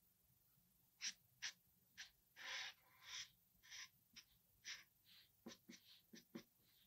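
Black felt-tip marker drawing short strokes on paper: about a dozen quick, faint scratches, each well under half a second, with one slightly longer stroke about two and a half seconds in.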